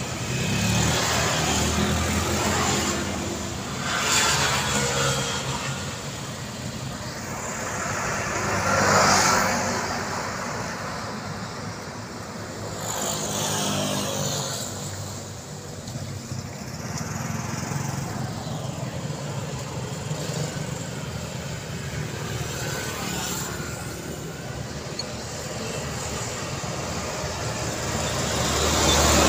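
Street traffic of motor scooters and cars passing close by, each pass swelling and fading, the loudest about nine seconds in. Near the end a light cargo truck comes closer and grows louder.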